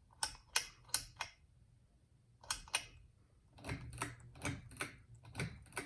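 A 42-inch ceiling fan running with a faint low hum and a series of sharp clicks, about three a second, in runs broken by short pauses.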